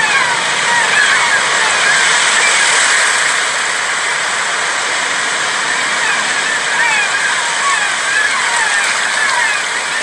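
Sea waves washing onto a sandy beach: a steady surf hiss that swells slightly a couple of seconds in. Short high chirps recur over it.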